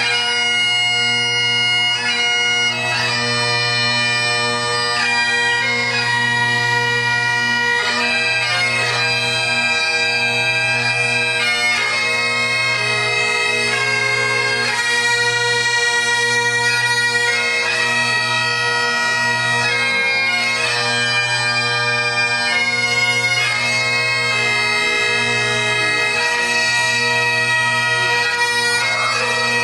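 Great Highland bagpipes, played by a group of three pipers: a melody on the chanters over the continuous low drones.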